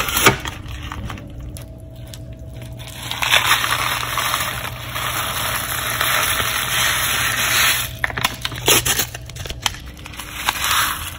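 Paper packet of dry chicken noodle soup mix crinkling as it is pulled from its box. For several seconds the dry noodles and seasoning pour from the packet into a pot of broth with a steady hiss. Near the end come more crinkles as the packet is shaken out.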